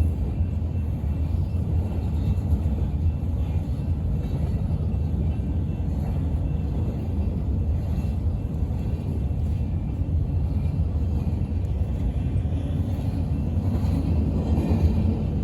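Strong wind buffeting the microphone: a steady, heavy low rumble that swells slightly near the end.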